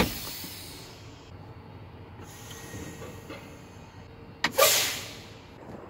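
Truck air brake dash valves being worked: a sharp blast of escaping air at the start that fades over about a second, then a second short burst of air about four and a half seconds in.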